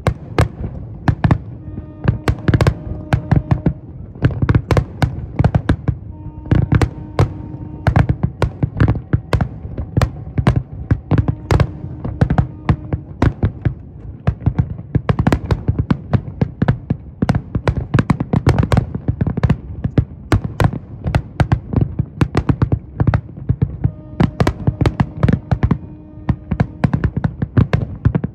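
Fireworks display: a dense, continuous barrage of bangs and crackling reports, several a second, over deep booms from the shell bursts. A faint steady low tone sounds underneath now and then.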